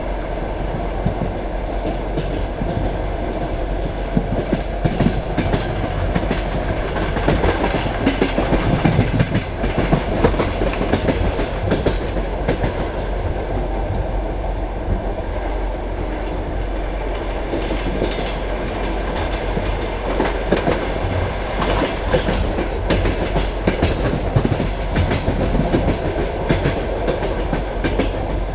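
Passenger carriage running along the line: a steady rumble with the wheels clacking over the rail joints, the clatter growing louder in stretches.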